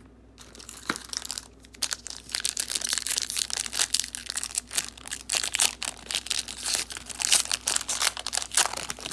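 Foil wrapper of a 2008 Upper Deck football card pack being crinkled and torn open by hand: a dense run of crackling that starts about half a second in and goes on to the end.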